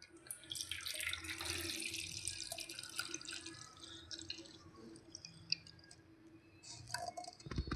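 Watery homemade cough syrup poured from a bowl into a container: a trickling, splashing pour for about three seconds that then thins out. A few light clicks come near the end.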